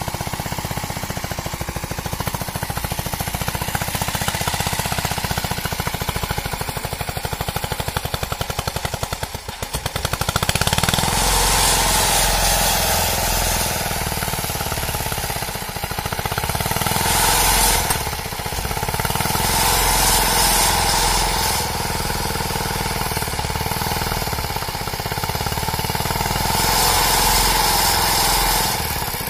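Small engine of a homemade three-wheeled tractor with tall spoked steel wheels, running with a rapid, even chugging. It grows louder in several stretches from about ten seconds in.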